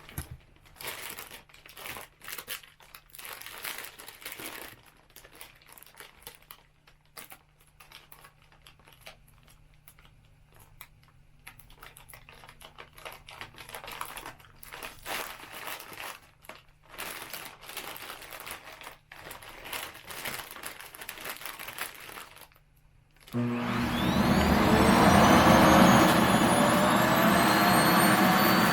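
Plastic compression bag crinkling in short, irregular bursts. About 23 seconds in, a vacuum cleaner switches on loudly, its motor whine rising in pitch as it spins up, to suck the air out of the bag.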